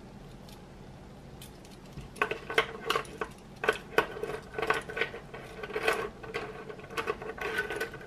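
Grey LEGO Technic plastic pieces clicking and knocking together as a chain of connectors is handled and pieces are pushed into place. Irregular sharp clicks start about two seconds in.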